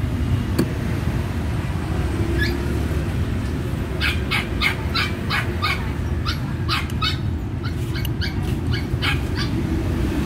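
A dog barking repeatedly, short sharp barks about two a second, starting about four seconds in and stopping shortly before the end, over a steady low rumble.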